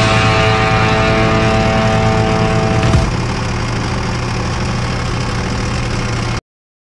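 Zetor Forterra 140 HSX tractor's diesel engine running steadily, heard close up, with a steady whine over a low hum. About three seconds in the whine stops and the sound drops a little, and near the end it cuts off abruptly.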